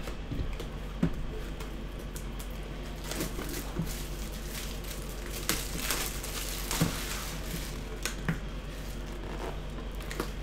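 Clear plastic shrink-wrap crinkling as it is pulled off a sealed trading-card box, with a few sharp clicks of the box being handled.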